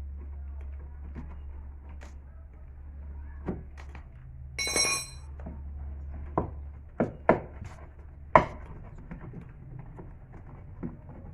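Metal tools and parts knocking and clinking while a car's left rear shock absorber is being taken off, with a brief metallic ring about halfway through. A run of sharper clanks follows, the loudest a little past the middle. A steady low hum underneath fades out around the midpoint.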